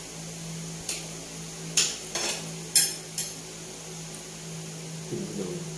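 Eating utensils clinking against a plate: about five short, sharp clinks in the first half, over a steady low hum.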